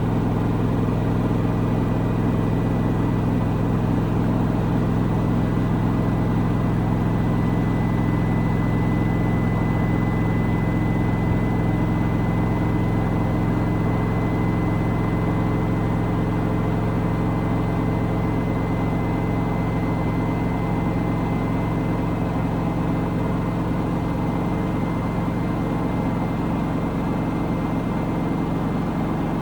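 Washing machine on its spin cycle, drum spinning at a steady speed with a constant low hum. A faint high whine joins several seconds in and holds.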